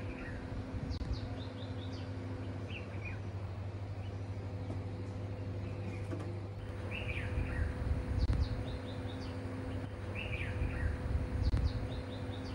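Wild birds calling in short, repeated chirping phrases every few seconds over a steady low hum, with low rumbling swells now and then.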